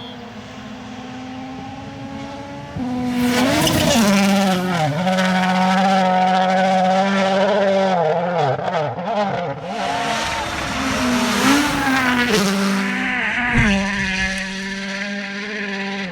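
Rally car engine running hard at high revs, its note held near one pitch with several quick dips and rises as the driver shifts and lifts. It gets much louder about three seconds in.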